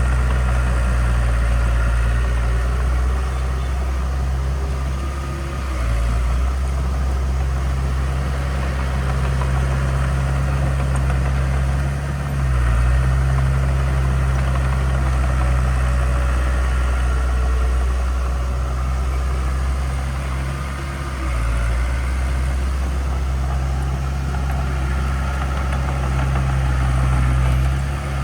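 Heavy diesel engine of a construction machine running steadily with a deep, low drone, easing off briefly three times.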